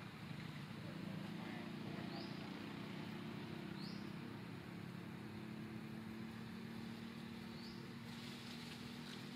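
A low engine hum runs steadily in the background. A short, high, rising chirp comes every couple of seconds.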